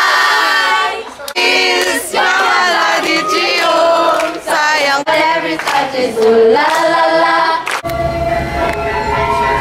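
Girls shouting excitedly, then a group of girls singing a song together while clapping. About eight seconds in it cuts to Indonesian dance music with ringing metal percussion.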